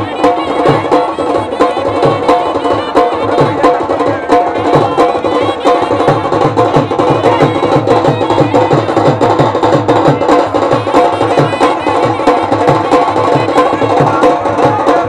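Traditional folk music with steady drumming and a wavering melody line, playing without a break.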